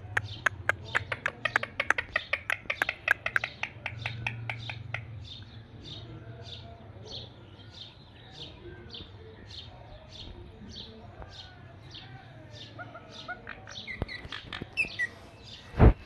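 Indian ringneck parakeets chirping in a fast run of short sharp notes, about four or five a second, easing after a few seconds into sparser chirps with soft warbling chatter and a few whistled notes. A single sharp knock comes near the end.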